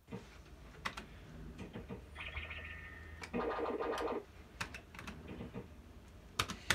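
QPS Yabba Dabba Dough fruit machine in play: sharp clicks from its buttons and reels, with electronic beeps and, a little after three seconds in, a louder electronic tone lasting about a second.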